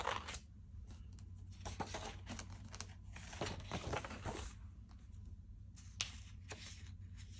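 Paper pages of a disc-bound planner being turned and pressed flat by hand: rustling and crinkling in several short bursts, with a light sharp tap about six seconds in.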